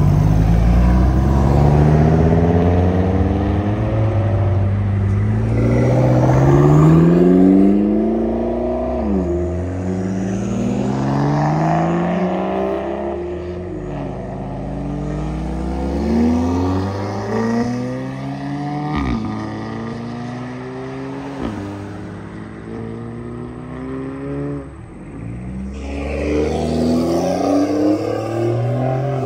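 Modified car engines accelerating away, the exhaust note climbing in pitch and dropping back again and again as gears change, fading as the cars pull off. There is one sharp pop about two-thirds of the way through, and a louder engine comes in near the end.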